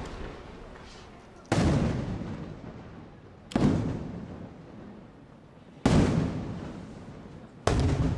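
Aerial firework shells bursting overhead: four sharp bangs about two seconds apart, each followed by a long fading rumble of echo.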